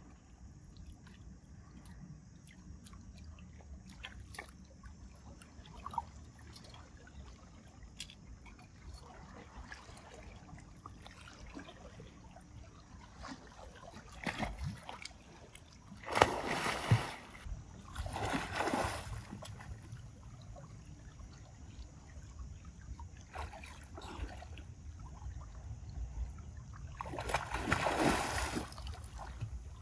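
Water splashing and sloshing in three bursts of a second or two, over a low steady rumble, with a few scattered light knocks in the first half.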